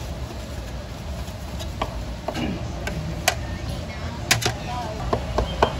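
Kitchen work at a food stall: irregular sharp knocks and clicks of utensils and a knife on a board over a steady low hum.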